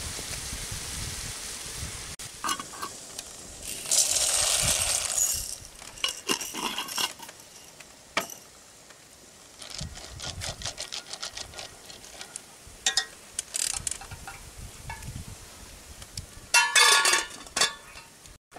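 Metal utensil clinking and scraping against an enamel cooking pot of macaroni on a clay stove, with a brief rushing rattle about four seconds in. Near the end comes a loud clatter as the enamel lid goes on.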